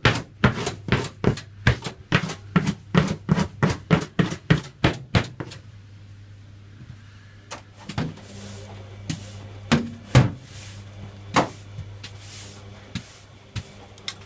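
Washing machine running with a steady motor hum and rapid, regular knocking, about four knocks a second, that stops about five seconds in; after that only occasional single knocks sound over the hum.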